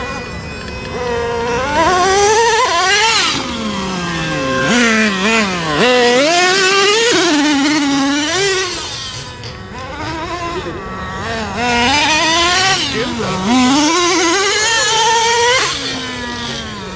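The Traxxas Revo 3.3's small two-stroke nitro engine revs hard and drops back again and again under throttle, its high pitch repeatedly rising and falling. It goes quieter for a couple of seconds in the middle.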